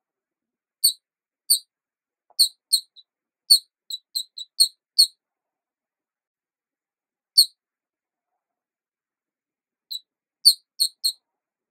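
A string of about fifteen short, high-pitched chirps in irregular clusters: a quick run through the first five seconds, a single one after a pause, then a few more near the end, with silence between.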